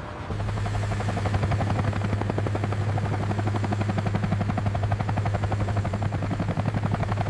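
Helicopter sound effect: rapid, even rotor-blade chopping over a steady engine hum, starting abruptly just after the beginning.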